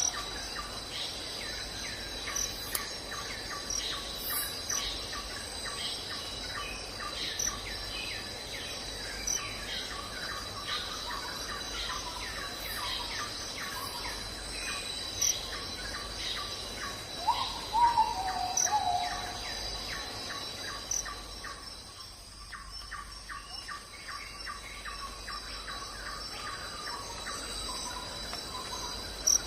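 Tropical forest chorus at night: insects keep up a steady high-pitched trilling while short chirping calls repeat in rows, which get faster in the second half. A falling call sounds twice, about 17 seconds in.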